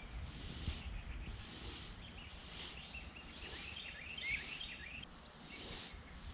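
Lead airgun pellets and slugs rolling back and forth inside a cloth towel, a soft rattling hiss with each rock of the towel a little more than once a second, drying and polishing them. Birds chirp briefly about three to four seconds in.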